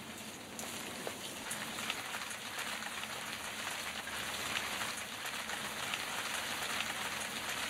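Steady hiss dotted with many small ticks, a pattering like rain falling on a surface.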